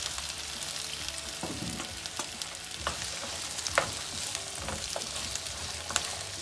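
Chopped okra sizzling steadily in hot olive oil in a non-stick pan on high flame. A wooden spatula stirring it knocks against the pan several times, loudest a little before the middle.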